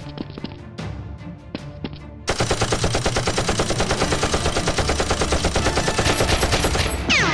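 Rapid automatic gunfire sound effect: a continuous burst of shots that starts about two seconds in and keeps up at an even pace. A few sharp clicks come before it.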